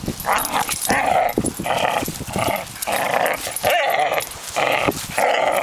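Doberman puppies growling in play while tugging on a toy: a quick run of short growls, about two a second.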